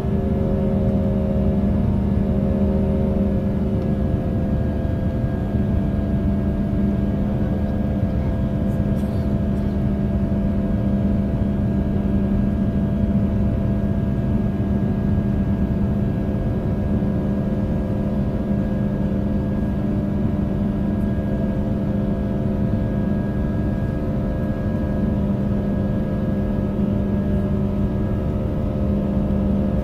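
Airbus A320 cabin noise over the wing while climbing after takeoff: a steady jet-engine drone over rushing airflow rumble, with a low hum of steady tones. A few of the tones dip slightly in pitch about three to four seconds in.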